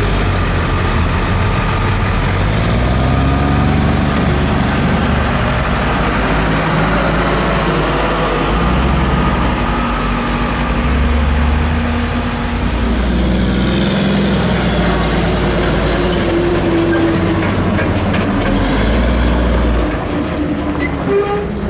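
Heavy diesel engines of a garbage truck and a backhoe running and driving off, the engine pitch rising and falling several times as they pull away.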